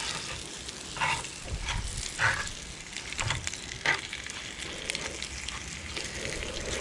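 Thin pieces of fish, coated in egg and seasoned corn flour, sizzling in hot oil in a frying pan: a steady frying hiss with a few louder sharp sounds now and then.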